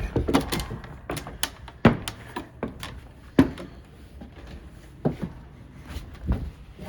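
A handful of irregular knocks and thuds, about seven in all, the loudest about two seconds in and another strong one near three and a half seconds.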